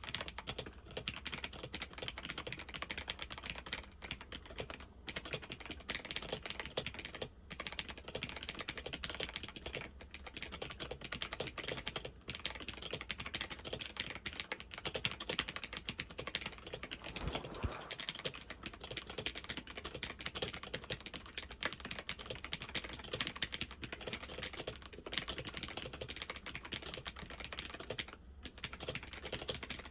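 Continuous fast typing on a laptop keyboard with Alps SKFL switches and doubleshot keycaps: a dense, even stream of key clicks and clacks, with one deeper thump about halfway through.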